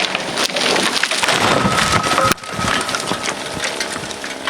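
Dead ash wood cracking and splintering, a dense crackle of many sharp snaps: the treetop tearing off its hinge and crashing through branches. The sound drops out abruptly just after two seconds in, then carries on.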